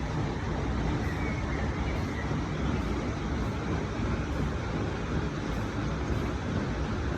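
Steady rushing water at a mill's water channel or weir, a dense even noise strongest in the low range.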